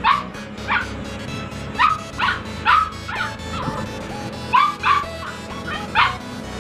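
Puppies yipping and whimpering: about ten short, high-pitched cries, each dropping sharply in pitch, over background music.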